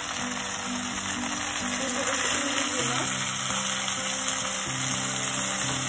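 Sliced onion, green capsicum and freshly added sauces and vinegar sizzling in hot oil in an iron kadhai, a steady frying hiss, with soft background music underneath.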